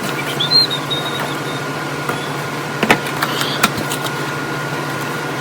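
A steady low hum with a faint steady higher tone over it, and a few light clicks of plastic toy parts being handled about three seconds in.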